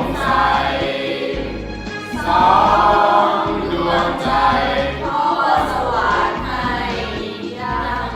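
Singing over music: a sung melody with several voices.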